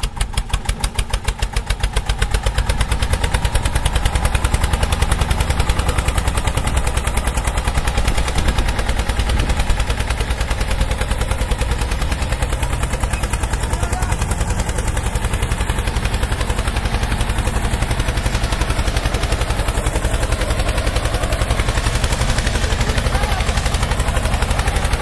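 Tractor engine running with a rapid, regular thumping that speeds up over the first couple of seconds, then holds fast and steady.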